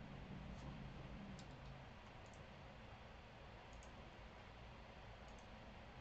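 A handful of small, sharp clicks, some in quick pairs, scattered over quiet room tone with a low hum.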